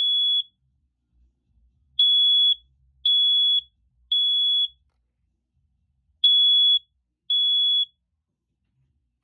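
First Alert SA710 smoke alarm sounding its alarm: loud, high-pitched half-second beeps in groups of three with a pause between groups, the standard three-beep fire-alarm pattern. It cuts off after two beeps of the last group, near the end.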